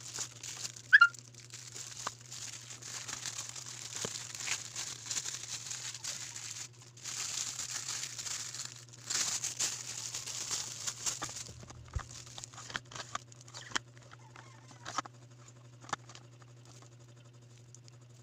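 Plastic packaging crinkling and rustling in bursts as it is handled and pulled off by hand, then a few sharp clicks and knocks as the unwrapped plastic item is handled. A steady low hum runs underneath.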